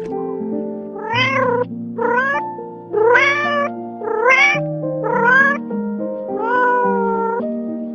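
Cat meowing six times, about once a second, each call rising in pitch and the last one longer, over background music.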